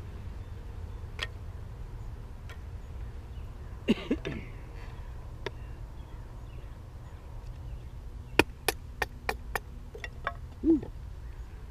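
Wooden baton knocking on the spine of a BMF2 bushcraft knife to split dry, seasoned birch: a few single knocks spread apart, then a quick run of about six strikes near the end.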